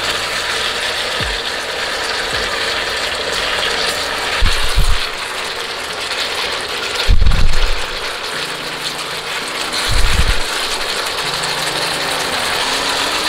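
Pork, onion and whole tomatoes sizzling in a frying pan as they are stir-fried with a silicone spatula. There are three low knocks of the spatula against the pan, the loudest about seven seconds in.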